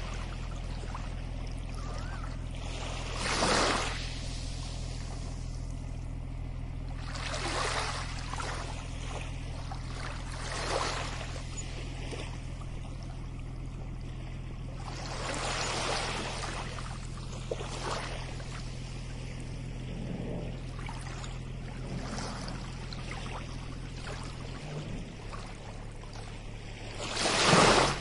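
Small waves washing onto a sandy shore, each swelling up briefly every few seconds, about six in all, the last the loudest. A steady low hum runs underneath.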